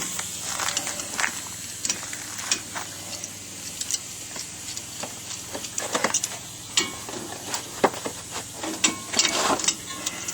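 Irregular metallic clicks, knocks and scrapes of hand tools on a disc brake caliper as a C-clamp is turned to push the caliper piston back into its bore. There is a denser scraping stretch about nine seconds in.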